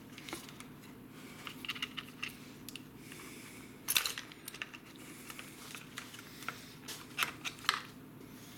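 Light clicks and taps of hard plastic and metal parts being handled and unclipped while a Stihl MS462 chainsaw is taken apart, with a sharper click about four seconds in and a cluster of clicks near the end, over a faint steady hum.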